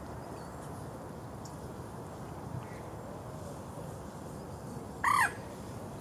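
A single short, loud bird call about five seconds in, with a pitch that bends downward at its end, over a steady background hiss.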